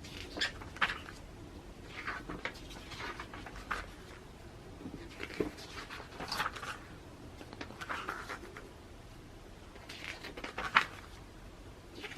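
Magazine pages being turned and handled: a series of short paper rustles and flicks at irregular intervals, with the strongest one about two-thirds of the way through.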